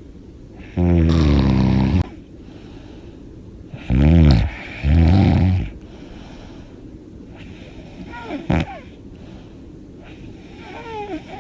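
A woman snoring loudly in her sleep: one long snore about a second in, two more back to back around four to five seconds, then two softer, shorter snorts later on.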